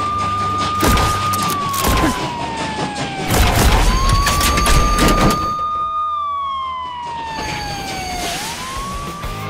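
Police siren wailing in a repeating cycle: each wail rises quickly, holds, then slides slowly down, about every four and a half seconds. Heavy rumbling with several bangs comes through the middle, loudest a little past halfway.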